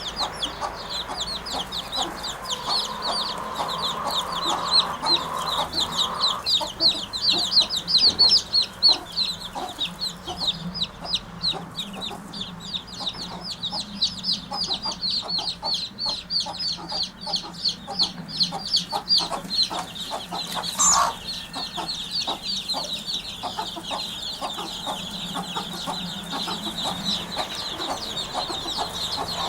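Birds chattering: a rapid, unbroken series of short high-pitched notes that sounds like a chicken clucking. One brief sharp rustle or knock about two-thirds of the way through.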